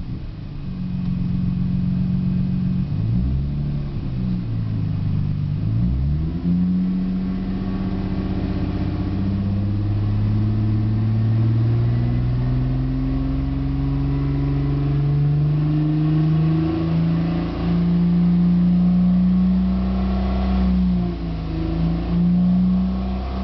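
Plymouth Prowler's V6 engine running through an aftermarket muffler while the car is driven. The exhaust note dips and comes back up twice a few seconds in, then rises steadily as the car accelerates, holds level, and falls away near the end.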